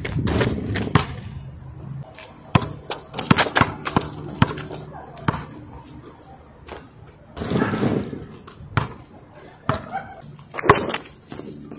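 Basketball bouncing on an asphalt court: sharp single thumps at irregular intervals, with a quick cluster of bounces about three to four seconds in.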